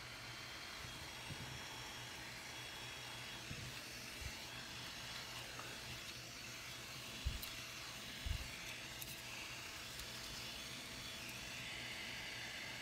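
Small brushless DC blower fan running with a steady airy whir and faint whine. Two dull knocks come a second apart near the middle.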